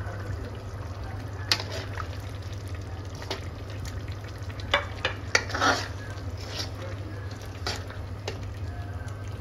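Steel ladle stirring mutton karahi in a black iron wok, clinking and scraping against the pan several times, loudest around the middle, over the bubbling of the simmering gravy. A steady low hum runs beneath.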